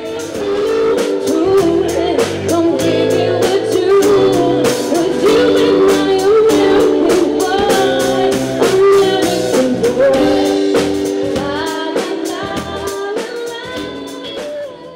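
Live band music: a woman singing over electric guitar, bass guitar and a drum kit, the sound fading down near the end.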